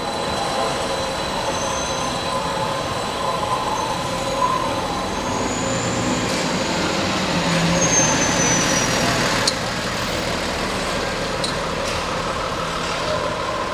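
City buses pulling away at a bus loop: a steady traffic rumble with a faint high whine that glides up and down. It grows slightly louder about two-thirds of the way in as a diesel bus follows the trolleybus past.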